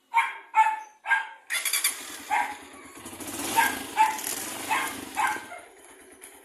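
A dog barks sharply several times. About one and a half seconds in, a Honda TMX 125's single-cylinder four-stroke engine starts and runs, louder through the middle, with more barks over it, then settles to a quieter steady idle near the end.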